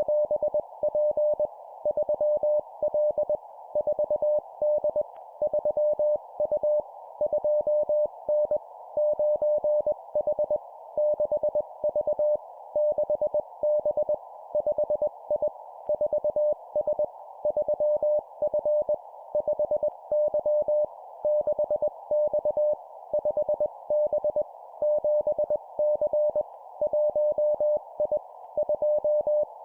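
Morse code (CW) at 20 words per minute: one steady mid-pitched tone keyed on and off in dots and dashes, sent as short two-character groups of letters and numbers, over a constant narrow-band hiss.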